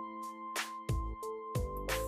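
Background instrumental music: held notes over a steady drum beat.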